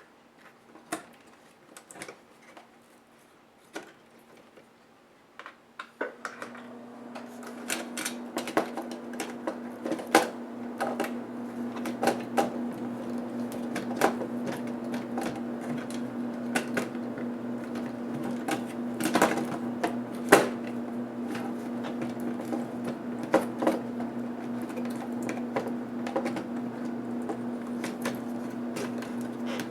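Small clicks and taps of tools and plastic parts being handled as a laptop is taken apart, at first sparse, then frequent. About six seconds in, a steady low hum starts and keeps on under them.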